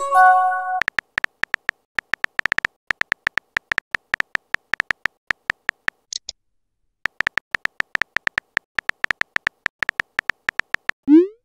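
Chat-app sound effects: a short message-received chime, a chord of several tones, at the start. Then rapid keyboard typing clicks in two runs, with a pause about six seconds in, and a rising whoosh near the end as the message is sent.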